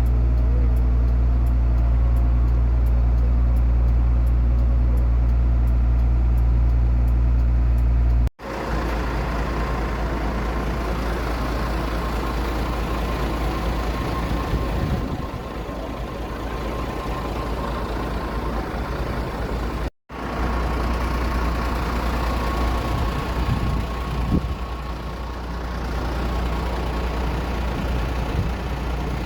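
Aircraft engines running: a steady low hum, then after an abrupt cut about eight seconds in, a noisier rushing sound with a steady high whine. The sound drops out briefly again about two-thirds of the way through.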